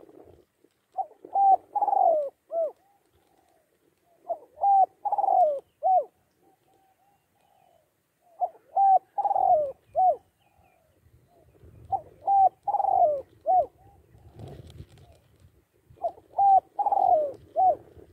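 Spotted dove cooing: five phrases about four seconds apart, each a few short coos around one longer, falling note.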